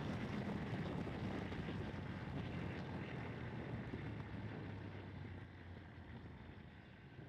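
Ducati Streetfighter 848's L-twin engine running under way with wind rush over the rider's microphone, growing steadily quieter through the stretch as the bike eases off.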